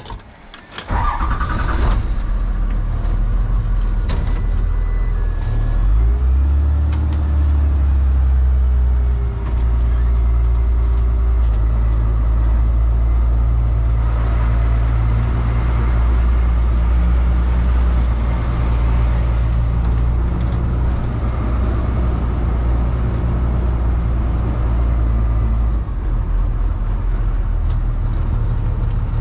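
Delivery truck's engine running with a steady low rumble that comes in abruptly about a second in.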